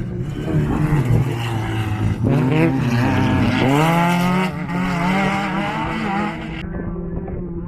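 Off-road race vehicle's engine passing through a turn. Its revs drop about two seconds in, then climb sharply as it accelerates away, loudest in the middle before easing off.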